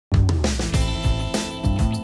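Background music with a steady drum beat under sustained pitched tones, starting abruptly.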